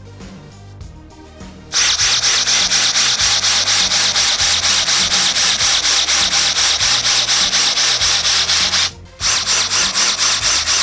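Metabo SB 18 LTX BL I cordless drill running in its impulse (pulse) mode, driving a screw into wood: the motor delivers short, evenly spaced bursts of power, several a second, giving a loud rhythmic pulsing. It starts about two seconds in, stops briefly about nine seconds in, then resumes.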